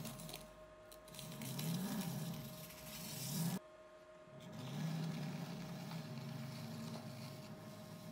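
Potter's wheel motor running with a steady hum while wet clay on the spinning wheel is rubbed and scraped by hands and a rib. The scraping cuts off suddenly about three and a half seconds in and starts again a second later.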